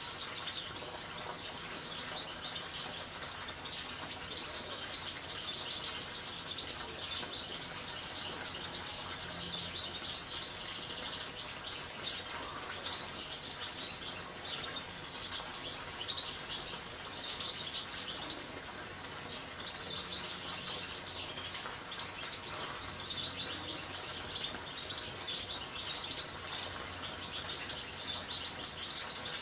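Several European goldfinches chirping and twittering without pause, their calls overlapping in a dense, high-pitched chorus.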